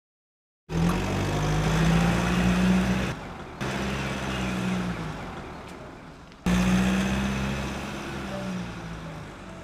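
SML school bus's diesel engine running, heard in three edited pieces: it starts abruptly about a second in, then cuts out and restarts at about three seconds and again at about six and a half seconds, each piece fading a little.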